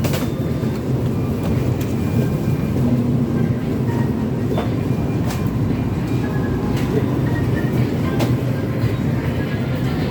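Supermarket ambience: a steady low rumble, with scattered light clicks and knocks.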